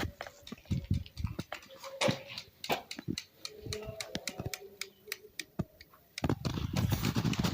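Irregular sharp clicks and knocks of things being handled, with a few short squeaky tones in the middle and denser rustling noise starting near the end.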